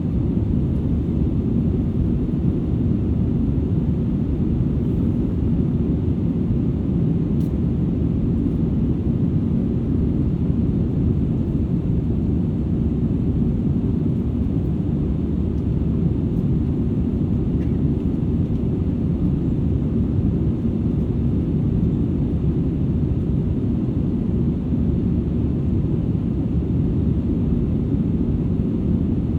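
Steady cabin noise inside an Airbus A320-200ceo in flight, heard from a rear seat: an even low rumble of engines and airflow with a faint steady hum.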